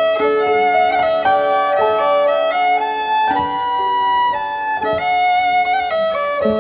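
Background music: a fiddle playing a melody, note after note, with no singing.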